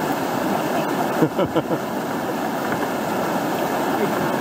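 Steady rush of river whitewater breaking over a standing wave and rocks. About a second in, a short burst of a voice cuts through briefly.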